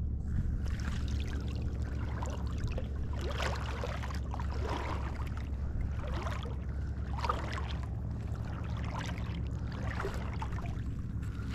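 Water trickling and splashing in irregular spatters, dripping from a wet cast net held over the water, over a steady low hum.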